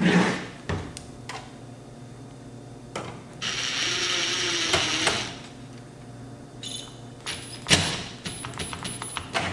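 Power screwdriver running for about a second and a half near the middle, driving screws in the metal chassis of an AV receiver, with clicks and knocks of screws and sheet-metal parts being handled before and after.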